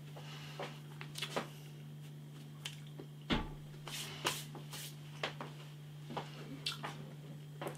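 Faint eating sounds from chewing a burger: scattered soft mouth clicks and smacks, over a steady low hum.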